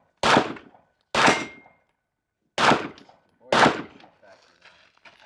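Four pistol shots about a second apart, each with a short echo, as a course of fire is shot; a brief ring of struck steel follows the second shot.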